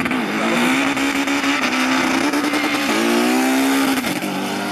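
Two race cars accelerating hard at full throttle down a quarter-mile drag strip, their engines running loud and high. The engine note dips just after the start and again about four seconds in, as at gear changes.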